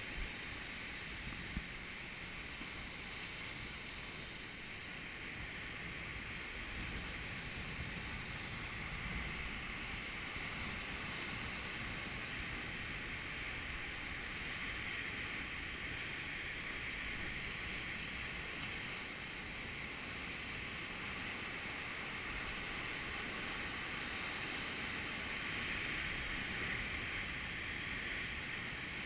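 Sea surf breaking and foaming against the rocks below, a steady rushing hiss that swells and eases slowly, with wind rumbling on the microphone.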